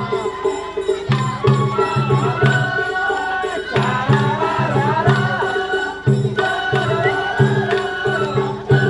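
Japanese festival float hayashi music: taiko drums beating a repeated rhythmic pattern under a wavering high flute melody.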